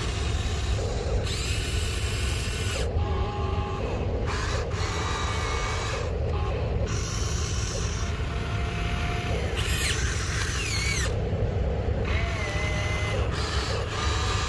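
Electric gear motors of a radio-controlled excavator whining as the boom, arm and bucket move, in short stretches that start and stop and glide up or down in pitch. A steady low rumble runs underneath.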